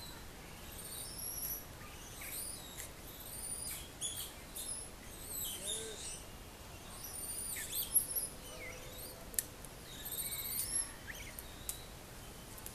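Small animals chirping: many quick high-pitched chirps and whistles that sweep up and down in pitch. A sharp click about eight seconds in is the loudest sound, and a second click follows about a second later.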